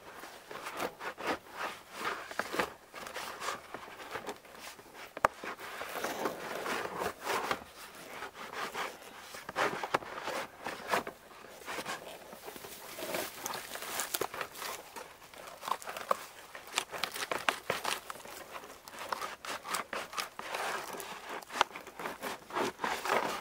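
Birch bark being pried loose from a felled birch log along a lengthwise cut, with irregular crackling, crinkling and small tearing sounds as it parts from the wood.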